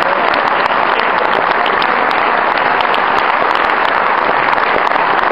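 Large crowd applauding, a dense, steady wash of many hands clapping.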